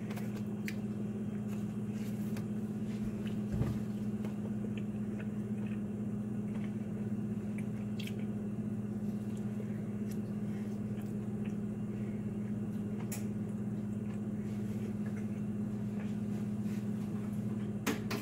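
A steady low hum, with a few faint clicks and soft chewing as a piece of oily baked tortilla is eaten.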